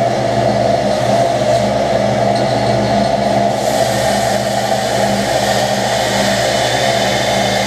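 A machine running steadily, a constant motor hum.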